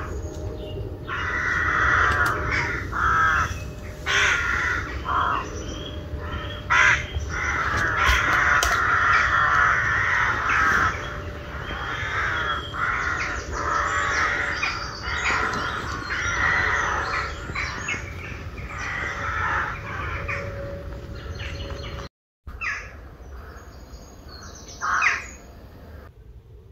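Crows cawing, many harsh calls overlapping almost without pause. After a short break about 22 seconds in, only a few quieter calls remain.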